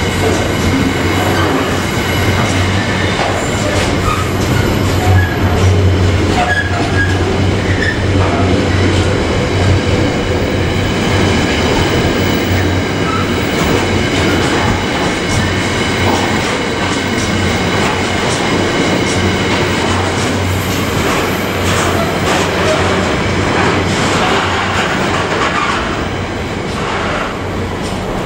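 Intermodal container freight train's wagons rolling past at speed. The wheels click over rail joints and a steady high wheel squeal runs through it. The sound eases slightly near the end as the last empty flat wagons clear.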